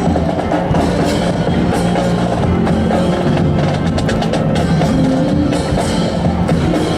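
Music with percussion, and a quick run of sharp clicks a little past halfway.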